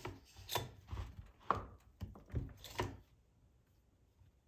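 About seven sharp knocks and clicks, roughly two a second, as a chainsaw's body and recoil starter are handled on a workbench; quiet after about three seconds.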